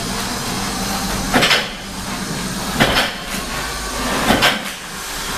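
A lifter doing single-leg half squats under a 170 kg barbell: three short sharp sounds about a second and a half apart, one with each rep, over a steady background noise.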